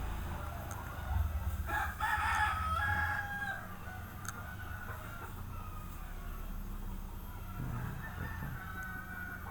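A rooster crowing, a pitched call of about two seconds starting near two seconds in, over a steady low hum.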